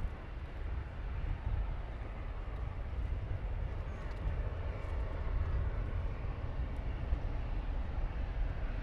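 Steady low rumble of a twin-engine jet airliner's engines as it climbs away after takeoff.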